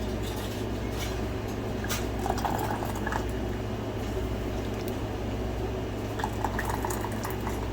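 Hot herbal cough syrup being poured into glass canning jars, with soft liquid sounds and a few faint clinks against the glass, over a steady low hum.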